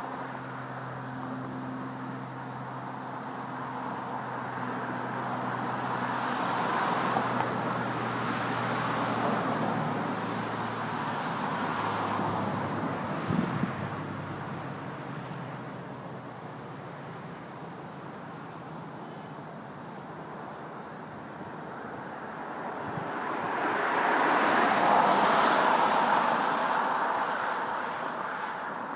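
Road traffic at an intersection: cars passing one after another, each a slow swell of tyre and engine noise, the loudest pass about twenty-five seconds in. A vehicle's engine hum sounds under the first dozen seconds, then fades.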